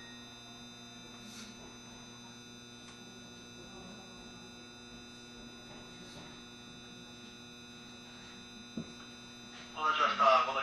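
Steady electrical hum of a JR Shikoku 7200 series electric train's on-board equipment, heard from inside the car with no running noise, a single thump near the end. A man's voice starts just before the end.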